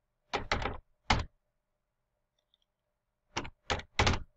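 Computer keyboard typing: a quick run of keystrokes in the first second and a half, a pause, then three more keystrokes near the end.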